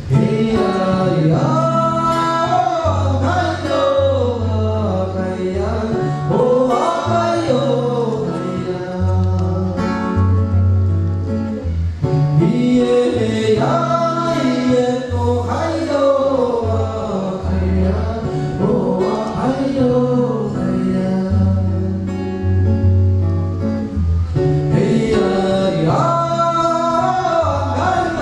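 Live band music: singing over guitar, with a steady bass line in held notes.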